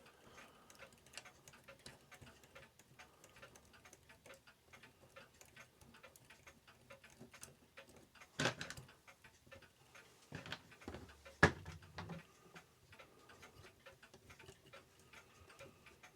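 Faint, steady ticking of a mechanical clock, with a couple of louder knocks from metal clock parts being handled, one about halfway through and a sharper one a few seconds later.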